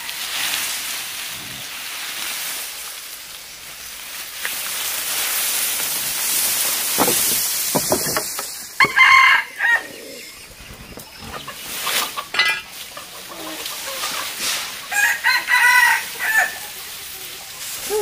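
A rooster crowing twice, about halfway through and again near the end, after a steady hiss over the first several seconds.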